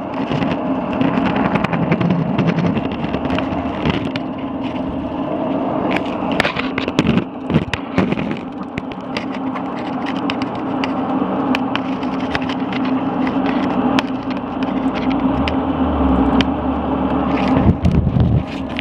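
An 80-year-old Axelson gear-head lathe running, its heavy headstock gears giving a steady mechanical hum with an overall roar. Scattered sharp clicks and knocks sound over it, and a low rumble comes in near the end.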